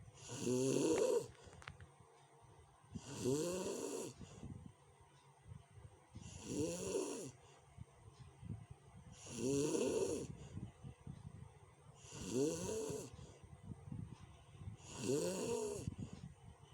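A sleeping person snoring rough and loud, six snores about three seconds apart, each a pitched rattle with a hiss over it, with quiet breathing between.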